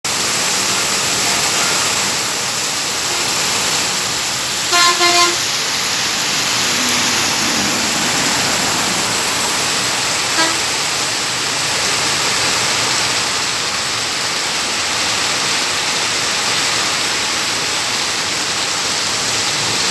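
Heavy rain pouring with a steady hiss. About five seconds in, a vehicle horn gives three quick short blasts, and a single short toot follows about ten seconds in.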